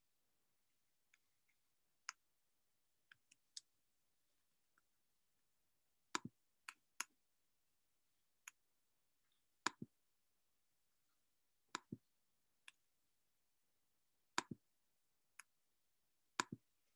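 Computer mouse buttons clicking in near silence: scattered sharp clicks, several in quick pairs, louder and more frequent from about six seconds in.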